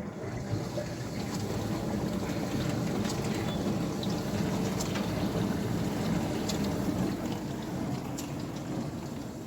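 Steady rush of running water that starts abruptly and eases off near the end, with a few faint clicks.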